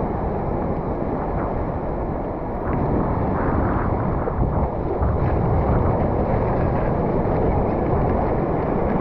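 Wind buffeting the camera microphone, a steady rumbling rush, with ocean surf beneath it.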